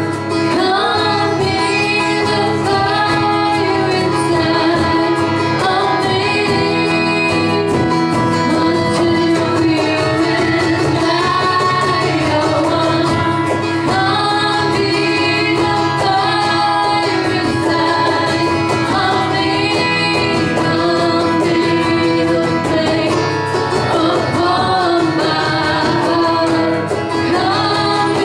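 Women singing a worship song at the microphone, with steady instrumental accompaniment underneath.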